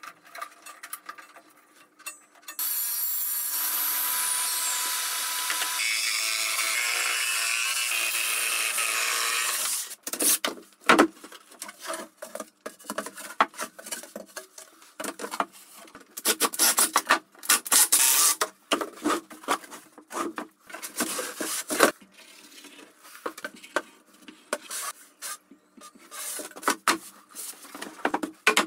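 A table saw runs steadily for about seven seconds cutting a plywood sheet, then stops. After that come many separate knocks, taps and scrapes of the plywood panel being handled and set into the wooden base frame.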